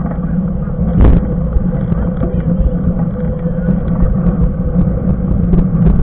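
Riding noise picked up by a handlebar-mounted camera on a moving mountain bike: a steady low rumble of wind on the microphone and knobby tyres rolling on asphalt, with a faint steady hum. A single knock sounds about a second in.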